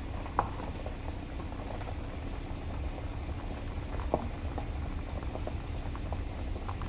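Low, fluctuating rumble of wind buffeting the microphone outdoors, with scattered small crackles and clicks. The sharpest clicks come about half a second in and about four seconds in.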